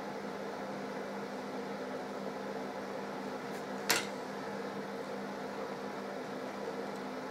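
Steady low hum of room machinery, with one sharp click about four seconds in as small model kit parts are handled on a tabletop.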